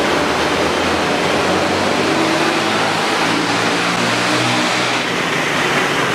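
Steady city road-traffic noise: a constant rush of car tyres with the hum of engines rising and falling as vehicles pass.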